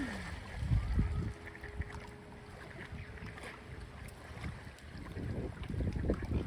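Strong gusty wind buffeting the microphone: an uneven low rumble that swells and eases, strongest around a second in and again near the end.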